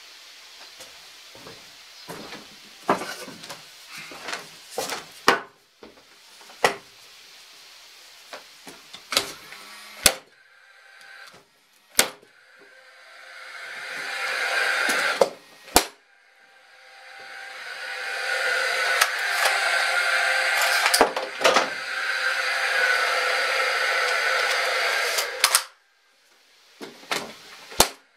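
Wooden boards knocked and set into place, then a Paslode IM350/90CT fuel-cell cordless framing nailer firing nails into pine boards with sharp cracks, its fan whirring steadily between shots and cutting off sharply.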